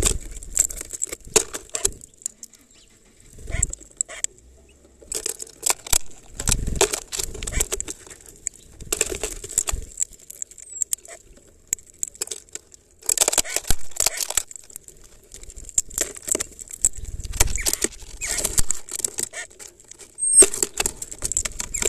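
Hawfinch cracking and picking through black sunflower seeds in a plastic bottle feeder: bursts of sharp clicks and crackles, with seeds rattling against the plastic, separated by short pauses.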